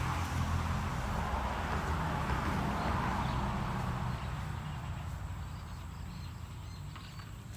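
A low, steady engine-like hum, with a rushing noise that fades away over the second half.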